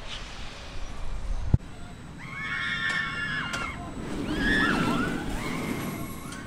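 Riders screaming on a steel roller coaster: several long screams that rise and fall, starting about two seconds in, over a low rumble from the coaster train on its track that is loudest near the middle.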